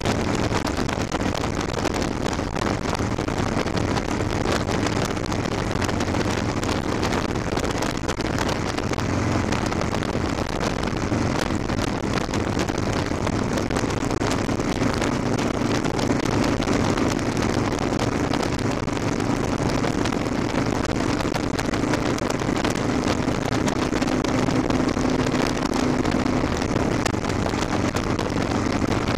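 Cruiser motorcycle engine running steadily at highway speed, under heavy wind rush on the handlebar-mounted microphone. The engine tone shifts slightly up from about midway on and holds there.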